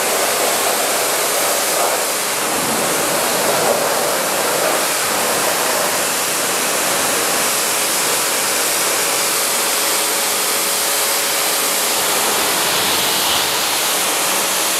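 Pressure-washer lance spraying a jet of water onto a car's bonnet: a steady hiss of spray that holds at one level.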